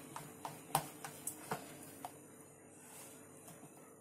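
Steel spoon stirring thick gram-flour batter in a bowl: faint clicks and taps of the spoon against the bowl, several in the first couple of seconds, then fading out.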